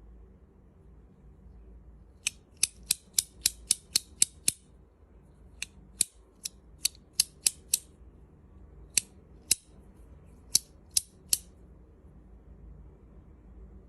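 Titanium alloy fidget toy clicking crisply and metallically as it is worked, in three runs of sharp clicks at about four a second.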